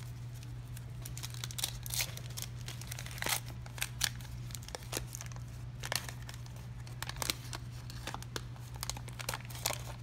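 1986 Topps baseball cards and their paper wrapping being handled: an irregular run of crisp crinkles and flicks.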